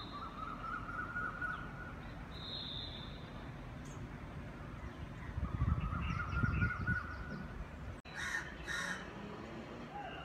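Crow cawing: two caws in quick succession about eight seconds in.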